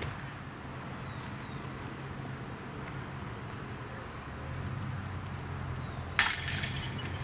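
Disc golf disc striking the chains of a metal basket: a sudden loud metallic crash of rattling, jingling chains about six seconds in, ringing off over about a second.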